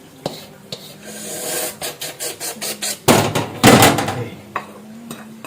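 Spatula scraping and knocking against a pan as fried rice is scooped out onto a plate: a string of sharp taps, with a longer, louder scrape about three seconds in.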